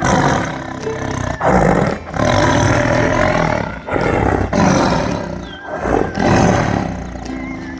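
A large wild animal roaring loudly several times in quick succession, each roar lasting up to about a second and a half.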